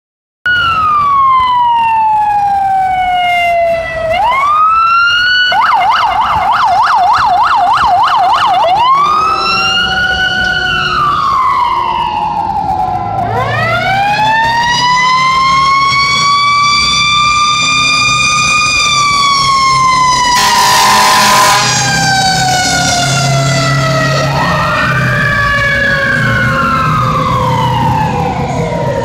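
Fire apparatus sirens on an emergency response: long rising and falling wails, switching to a fast yelp for about three seconds around six seconds in, with a loud horn blast about twenty seconds in and a heavy truck engine rumbling underneath. Near the end two sirens wail at once, one falling as the other rises.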